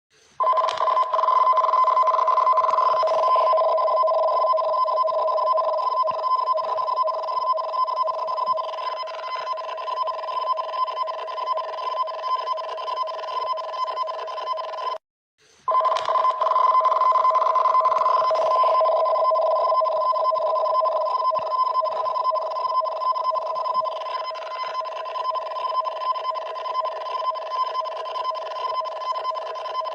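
Japanese emergency warning broadcast alarm for a tsunami warning: a loud, harsh two-tone signal holding a lower and a higher pitch together. It cuts out for about half a second halfway through, then starts again.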